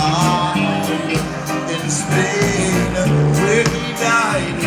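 Live reggae band playing, with electric guitars, drums and keyboards under a male lead vocal line. The cymbal and drum strokes keep an even beat.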